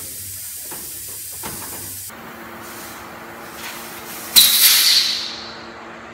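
Pressurised gas hissing out of a Carrier mini-split indoor unit's refrigerant line fitting as its cap is loosened to let the holding pressure out. A steady hiss, then about four seconds in a sudden loud hiss that fades away over about a second.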